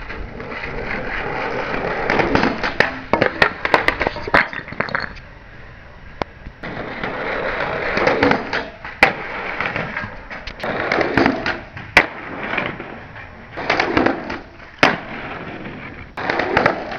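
Skateboard wheels rolling on concrete in swelling and fading runs, with sharp clacks of boards popping and landing scattered through.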